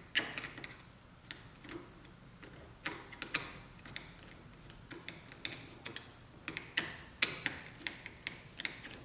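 Scattered sharp clicks and light metallic taps of a screwdriver and small parts as the cord clamp of a 220 V welder plug is taken apart, a few of them ringing briefly.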